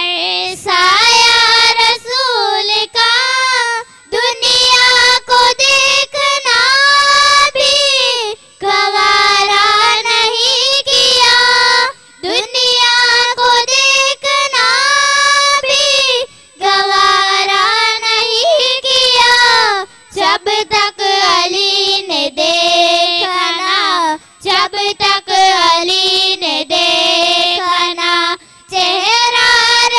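Two young girls singing a naat, a devotional poem in praise of the Prophet, into microphones without instruments, in melodic phrases broken by short pauses for breath every few seconds.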